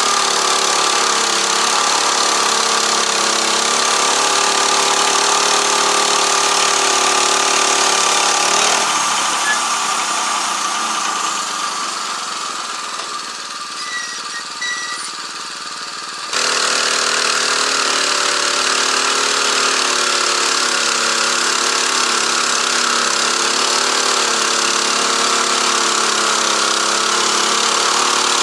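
Gasoline engine of a portable band sawmill running steadily as the band blade saws along a log. About nine seconds in, the engine falls away to a quieter hiss with a few faint high chirps; it comes back suddenly about seven seconds later.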